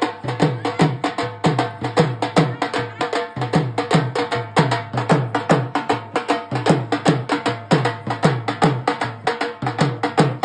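Dhol drumming: a fast, steady beat of sharp strikes, about four a second, with deep bass strokes that drop in pitch after each hit.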